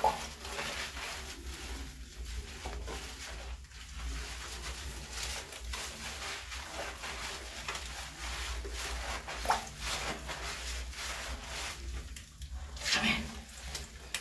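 Hands rubbing shampoo into a wet dog's fur, wet scrubbing and squelching, with a few brief louder noises, the loudest near the end.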